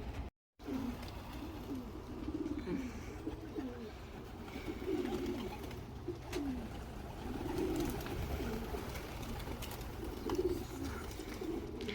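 Racing pigeons cooing, one low call after another.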